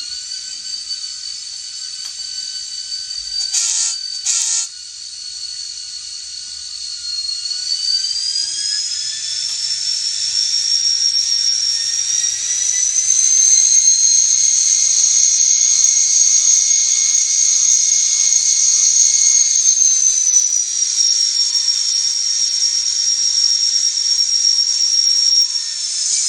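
Sound-equipped N scale EMD GP30 locomotive's LokSound decoder playing diesel locomotive sound through its tiny speaker: a high engine whine that rises in pitch about 8 seconds in, holds, and falls back about 20 seconds in. Two short hisses come about 4 seconds in.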